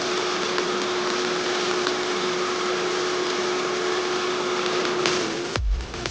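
Onions, green chillies and turmeric frying in a nonstick pan: a steady sizzling hiss with a steady hum under it, and a spatula stirring and scraping the pan. About five and a half seconds in, the sound drops away suddenly with a low thump.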